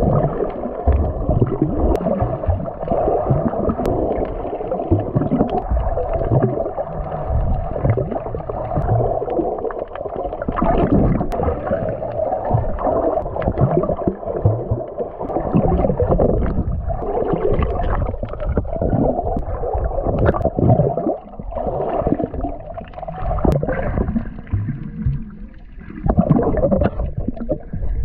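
Muffled water sloshing and gurgling against a camera held in the sea.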